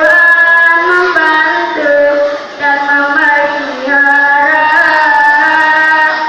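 A santri (Islamic boarding-school student) singing solo in a melodious voice, holding long notes with ornamented slides between pitches, with a short breath about two and a half seconds in. The phrase trails off near the end.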